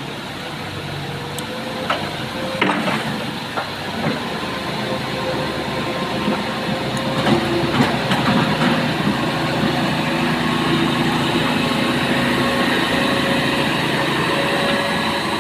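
Heavy diesel engine of a working excavator running steadily, rising a little partway through. A few sharp knocks stand out over it early on and again in the middle.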